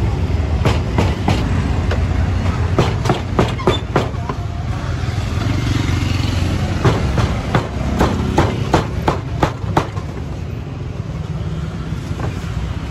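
A cleaver chopping roasted pork on a round cutting board: sharp, irregular chops, two or three a second, that stop about ten seconds in. A steady low rumble runs underneath.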